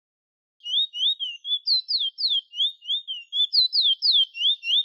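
Chestnut-bellied seed finch (the 'bullfinch' or towa-towa of Trinidad and Guyana) singing a fast run of clear whistled notes, some sliding up and some sliding down, about three to four a second, starting about half a second in.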